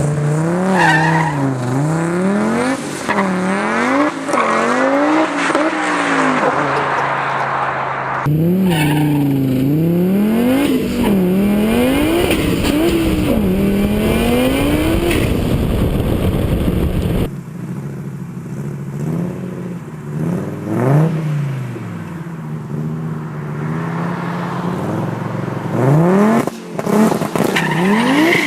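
Turbocharged race car engines revving hard, the pitch climbing and dropping again and again. The sound changes abruptly twice, about a third and about two thirds of the way through.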